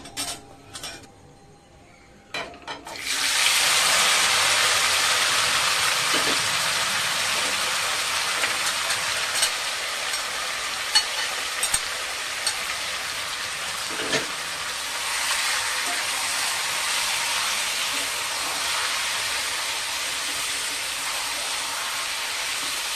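A few knocks against the pan, then about three seconds in marinated mutton goes into hot mustard oil and fried spices in a kadai and sizzles loudly and steadily, with a few knocks of a utensil on the pan now and then.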